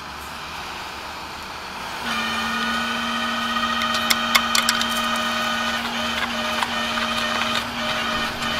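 Rollback tow truck's hydraulic pump coming on about two seconds in, a steady whine that holds, with a few sharp metallic clicks partway through.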